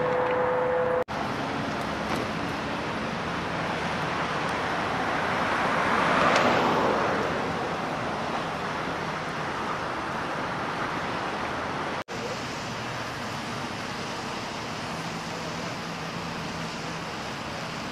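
Freeway traffic noise: a steady roadside rumble of passing vehicles, with one vehicle going by that swells and fades about six seconds in.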